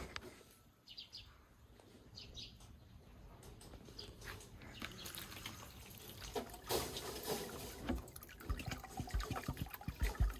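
Water pouring and trickling into a rabbit nipple-drinker line, with scattered clicks and a few low knocks near the end.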